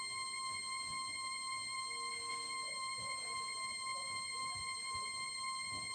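Steady high-pitched electronic tone with a buzzy edge, held unchanging, played back as a deliberately annoying sound.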